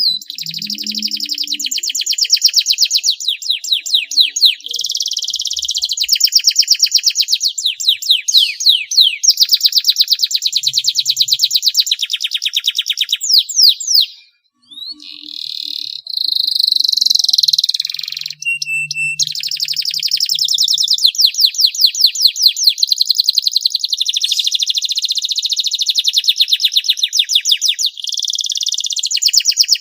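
Domestic canary singing long, rapid trills: phrases of quickly repeated high notes, strung one after another. There is a short pause about halfway through.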